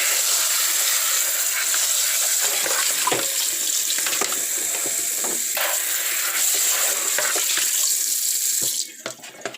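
Kitchen tap running water over cooked ground beef to rinse the grease out, with a few light knocks of the dish. The water shuts off near the end.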